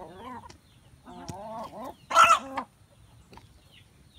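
Chickens clucking in a few short, wavering calls, with one louder, harsher call about two seconds in.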